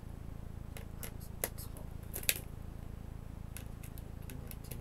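Scattered small clicks and ticks of a precision screwdriver turning and lifting tiny screws out of a Chromebook's internal frame. A sharper click comes about a second and a half in and the loudest just after two seconds.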